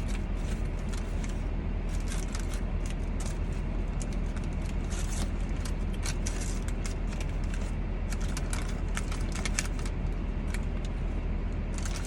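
Steady low hum of a car idling, heard inside the cabin, with irregular crinkling and rustling of paper food packaging being handled.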